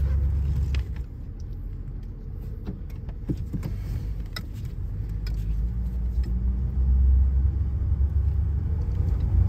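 Cabin sound of a 1978 Lincoln Town Car's 460 V8 and tyres on the move: a low rumble that eases off about a second in and builds again over the last few seconds, with a few faint clicks.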